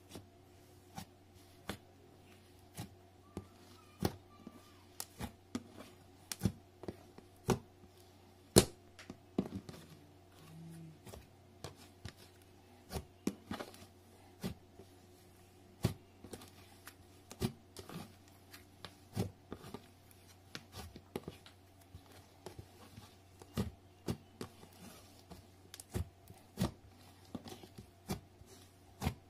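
Hands kneading and squeezing thick slime mixed with sand, giving irregular sharp pops and clicks, one or two a second, as the slime is pressed and pulled.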